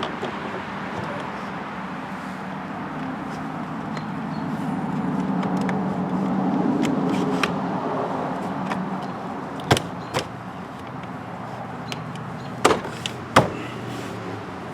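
A steady low vehicle hum that swells for a few seconds in the middle and then eases off, followed by four sharp clicks or clunks in the second half.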